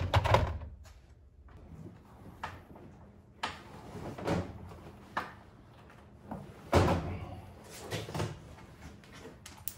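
Old molded car carpet being pulled up and wrestled out of the footwell: a run of dull thuds and knocks with rustling and scraping between them, and a louder thump about seven seconds in.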